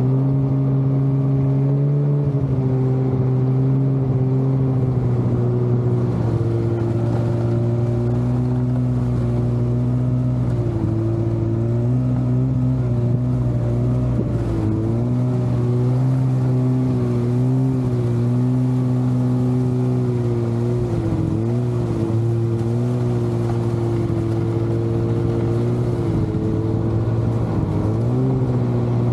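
Snowmobile engine running steadily at low cruising speed, close up, its pitch dipping briefly a few times as the throttle eases and picks up again.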